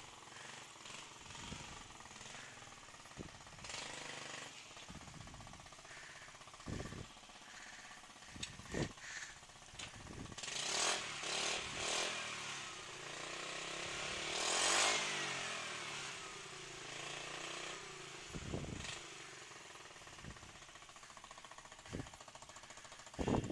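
Yamaha Vino scooter's small engine running with a rattly, jackhammer-like beat, loud with the muffler, the owner thinks, taken off. It swells into a louder stretch of rushing noise about ten seconds in and falls away again, with a few sharp knocks scattered through.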